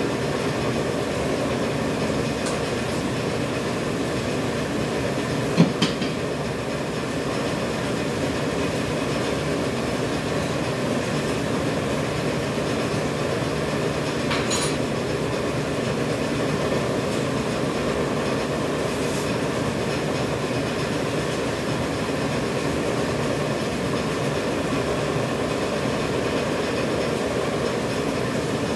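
Dental face-mask production machine running steadily, an even mechanical noise with a few steady tones in it. A single sharp click just under six seconds in.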